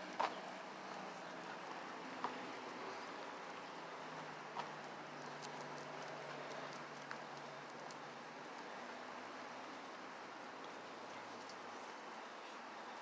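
Faint steady outdoor background noise with a few light, sharp clicks spread through it.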